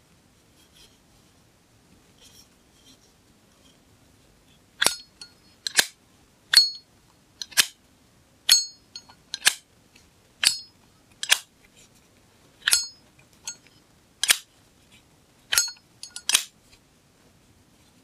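Zippo lighter's metal lid flicked open and snapped shut over and over, about one sharp click a second; many of the clicks carry the brief metallic 'cling' ring of a Zippo.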